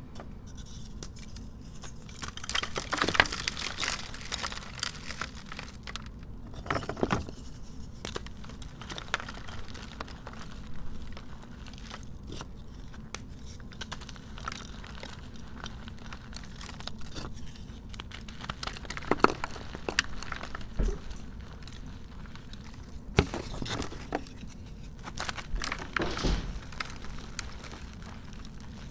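Blocks of dyed gym chalk and reformed chalk being crushed and crumbled, a crisp crunching and crackling in irregular bursts with short pauses between.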